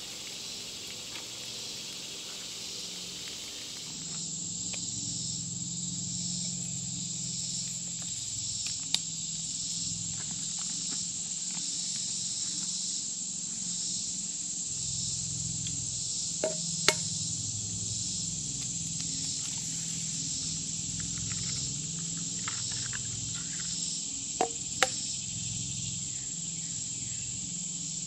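Steady high-pitched buzzing of a summer woodland insect chorus, with a faint pulsing. A few sharp clinks of cookware cut through it about a third of the way in, around the middle, and near the end.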